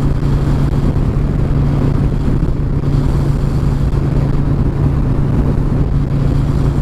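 Harley-Davidson V-twin motorcycle engine running steadily at cruising speed, a constant low hum under the rush of wind and road noise.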